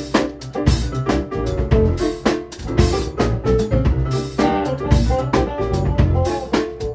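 Live funk-soul band playing an instrumental groove: a drum kit keeps a steady beat under bass guitar, piano chords and electric guitar.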